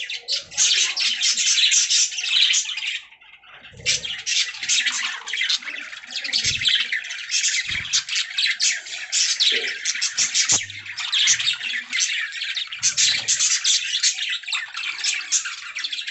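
Budgerigars (budgies) chirping and chattering in a fast, continuous stream of high chirps and short squawks, pausing briefly about three seconds in.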